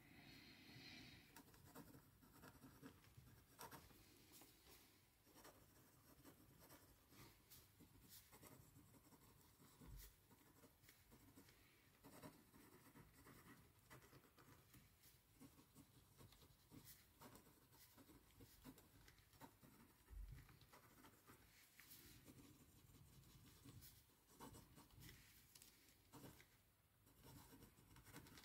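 Faint scratching of handwriting on paper in short, irregular strokes, with a soft low bump now and then.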